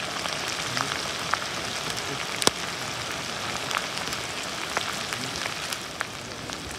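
Hot oil sizzling steadily in a steel wok over a wood fire, with scattered sharp crackling pops and one louder pop about two and a half seconds in.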